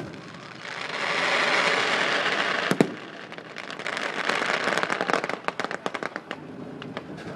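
Fireworks display: a bang right at the start and a loud report just before three seconds, with stretches of steady hiss between them. Then a rapid run of crackling pops comes between about four and a half and six and a half seconds.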